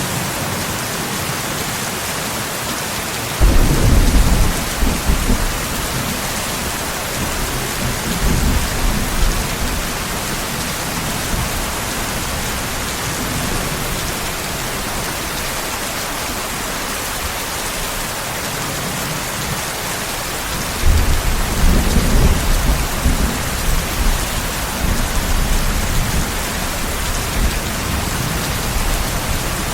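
Steady heavy rain with two rolls of thunder: a sudden low crack about three seconds in rumbling on for several seconds, and a second long rumble starting about two-thirds of the way through.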